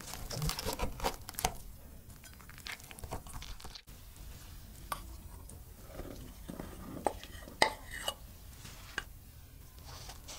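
A large knife crunching through the crisp, pan-fried crust of a cheese-filled flatbread, with quick crackly cuts over the first few seconds. After a break, flour is poured softly into a glass mixing bowl, with a few sharp clinks of the measuring jug and spoon against the glass.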